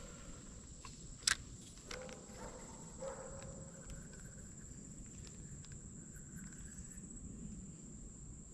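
Quiet outdoor ambience with a steady, high-pitched insect drone. One sharp click comes about a second in, and a few soft short chirps follow.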